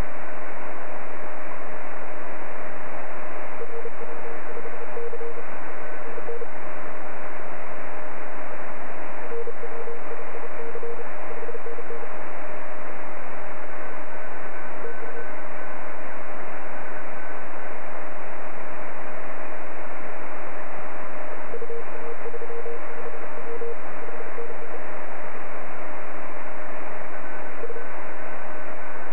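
Shortwave amateur radio receiver audio: a steady hiss of band noise with no highs and a steady carrier whistle under it. Several short runs of on-off Morse code beeps come and go.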